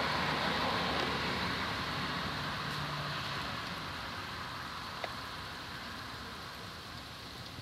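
Steady hiss of light rain falling, slowly growing quieter, with one faint click about five seconds in.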